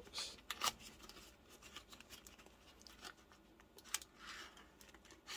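Gloved hands rummaging in a cardboard box compartment: faint rustling with a few light clicks and taps as small parts and packaging are handled.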